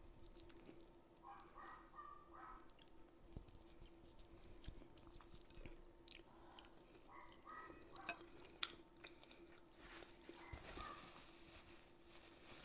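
Faint close-up chewing of pasta with small scattered wet mouth clicks.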